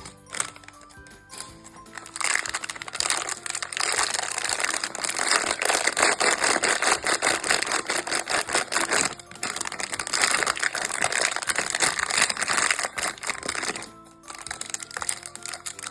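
Background music with a light melody, under loud crinkling of plastic wrapping being opened. The crinkling starts about two seconds in, pauses briefly midway and stops shortly before the end.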